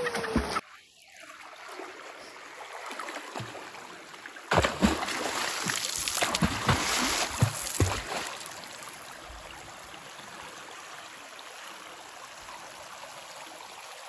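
A swimmer splashing in a shallow stream pool, with water running over rocks. A burst of splashing at the start cuts off abruptly. A few seconds later comes louder, uneven splashing, and it settles into an even rush of running water.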